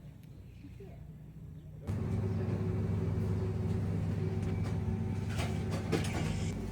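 A car running with a steady low drone. It comes in suddenly about two seconds in, after a quiet stretch, with a few light clicks near the end.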